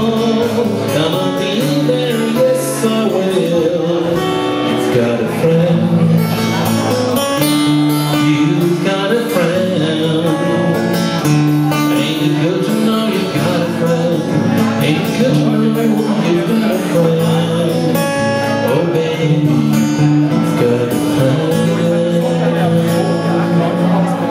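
Live song: a man singing to his own acoustic guitar, the guitar played steadily underneath the voice.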